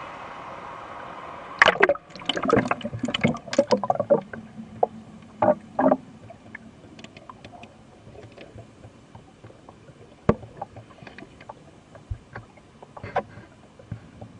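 A steady rush of falling water, then, about a second and a half in, several seconds of loud, irregular splashing and sloshing as the camera is plunged into the pond. After that comes muffled underwater sound with scattered faint clicks and ticks.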